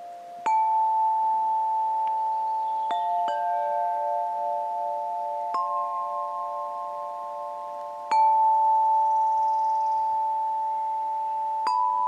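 Clear tubular chimes in a frame, struck one at a time with a soft ball-headed mallet: six slow strokes. Each note rings on for several seconds, so the tones overlap into a sustained chord.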